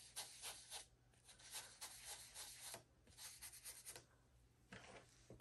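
Faint, quick strokes of a round ink blending brush rubbing distress ink into a paper page, in three short runs with brief pauses between them.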